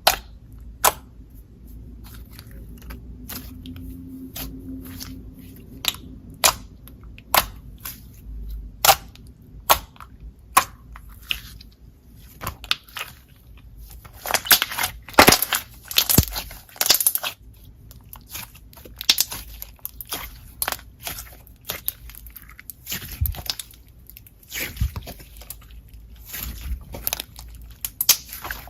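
Jelly slime being pressed and squeezed by hand, making sharp clicks and pops, spaced out at first and then denser and crunchier about halfway through.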